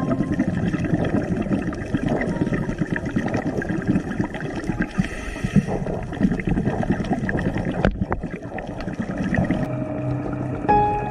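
Underwater sound of a school of cardinalfish milling tightly around the camera: a dense rustling crackle of many small ticks and rushes. Music with steady tones comes in near the end.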